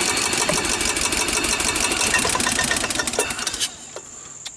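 1993 Club Car golf cart's gas engine turning over and firing with a fast, even chatter, then cutting off suddenly about three and a half seconds in. The engine stalls, which the owner puts down to a carburetor sludged up from sitting.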